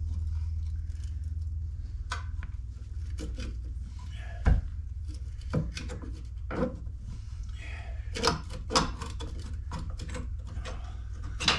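Scattered metal clinks and knocks of a new wheel stud being worked into a rear wheel hub by hand and with tools, the sharpest knock about four and a half seconds in, over a low steady hum.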